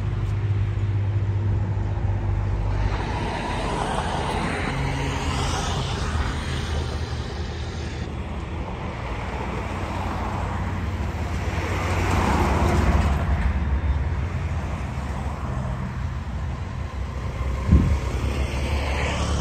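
Road traffic passing close by, vehicles swelling up and fading away twice over a steady low engine hum, with one short knock near the end.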